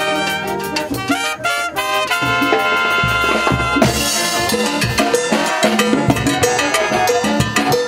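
Live brass band playing salsa: the trumpet section plays a phrase in held notes, then about four seconds in a cymbal crashes and the drum kit and percussion drive the salsa beat under the horns.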